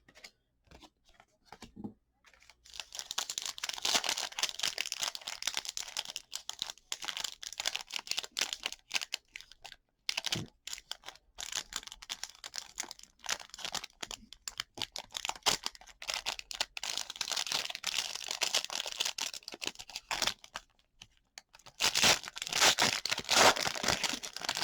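A trading card pack's wrapper being torn open and crinkled, in crackly stretches with short pauses, loudest near the end.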